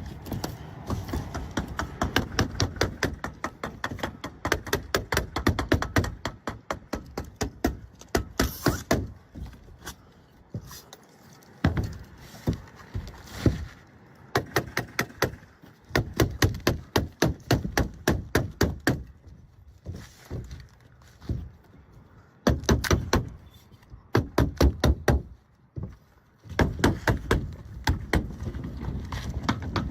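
Shingles being nailed down with a roofing nailer: rapid bursts of sharp knocks, about five a second, broken by short pauses.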